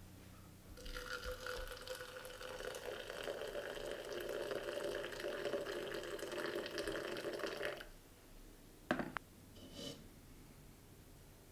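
Liquid being poured into a container in a steady stream for about seven seconds. A sharp knock follows about a second later, then a short fainter sound.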